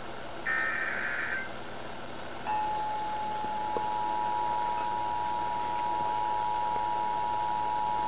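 Emergency Alert System test broadcast: a one-second burst of the SAME header data tones about half a second in. Then, from about two and a half seconds, the steady two-tone EAS attention signal starts and holds without a break.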